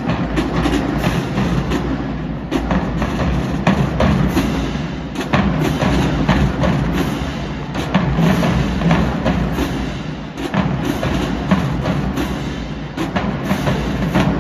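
Marching drumline playing a rapid cadence: sharp snare strikes over heavy bass drums, ringing in a large arena.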